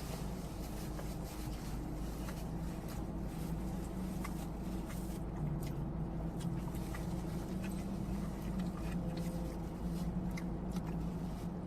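Steady low hum of a car's idling engine heard inside the cabin, with scattered faint small clicks.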